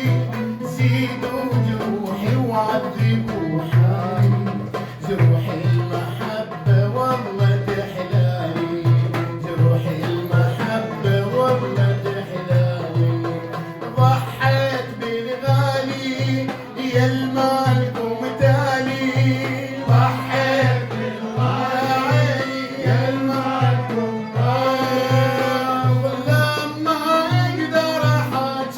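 Instrumental passage of an Iraqi folk song played by a band: a steady low drum beat of about two strokes a second under melodic instruments carrying the tune.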